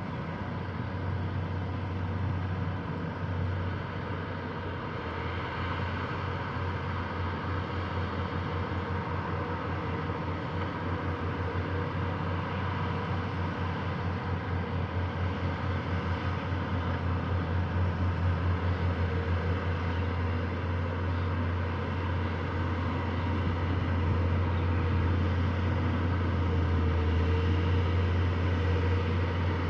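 Diesel engines of heavy earthmoving machines, a Sumitomo hydraulic excavator digging with a Komatsu bulldozer working nearby, running with a steady deep drone. The drone throbs through the middle stretch and grows a little louder toward the end.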